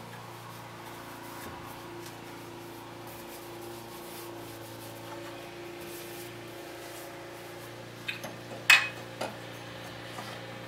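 A cloth rag rubbing and wiping over the aluminium engine cases, soft and scratchy, over a steady low hum. A few sharp knocks of hands and metal parts on the engine come about eight to nine seconds in.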